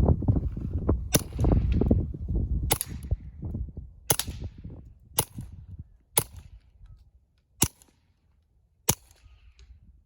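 Seven suppressed .22 LR shots fired one after another through an AAC Prodigy 22 suppressor, each a short sharp crack, about one to one and a half seconds apart. The suppressor keeps them quiet, close to the sound of a pellet gun.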